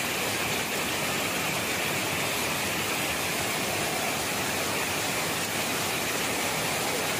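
Water pouring over a concrete pond spillway into churning water below, a steady rush without a break.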